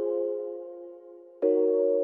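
Background music: soft, sustained chords that fade away, with a new chord struck about a second and a half in.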